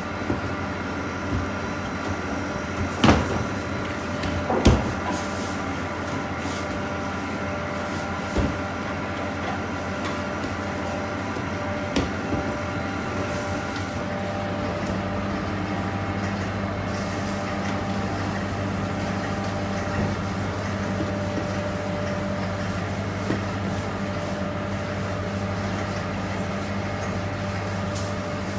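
Bakery kitchen ambience: a steady mechanical hum of kitchen equipment, with a few sharp knocks from work at the steel bench in the first half. The hum changes about halfway through.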